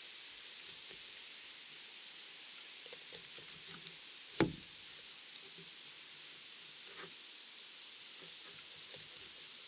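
Knife work on a chicken carcass while cutting through the tail bone: small clicks and taps, with one loud knock about four and a half seconds in, over a steady background hiss.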